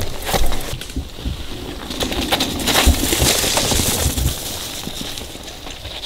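Mountain bike being pushed up a muddy slope with knocks and rattles, then riding fast down a leaf-covered trail: tyres rushing over the leaves and dirt, with wind buffeting the microphone in deep thumps.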